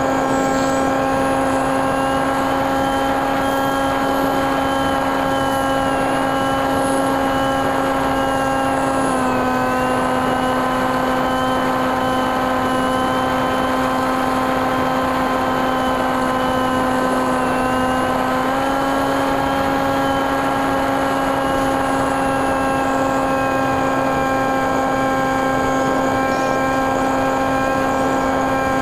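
Brushless NTM 28-26 electric motor and 8x6 propeller of a TekSumo flying wing, heard from on board in flight: a steady propeller hum with a thinner, wavering whine above it. The pitch drops slightly about nine seconds in and comes back up about nine seconds later as the throttle changes.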